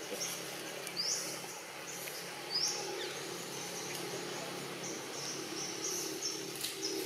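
A bird calling repeatedly over a steady low background hum: two sharp rising chirps in the first three seconds, then a run of shorter high notes.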